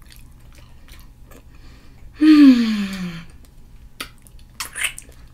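A woman eating seafood boil: soft mouth clicks, then a loud, breathy vocal sound about a second long that falls in pitch, and wet smacks as she licks sauce from her fingers near the end.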